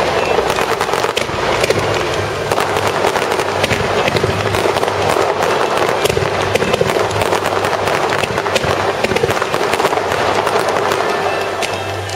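Fireworks crackling: a dense, continuous rattle of sharp pops and crackles over a loud hiss, easing off slightly near the end.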